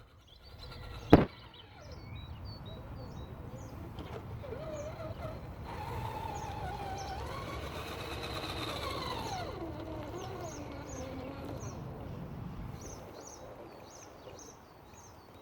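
RC rock crawler's electric motor and geartrain whining under load as it tries to climb a curb, the pitch wavering and rising, then falling away with the throttle. There is one sharp knock about a second in. Small birds chirp in short repeated notes throughout.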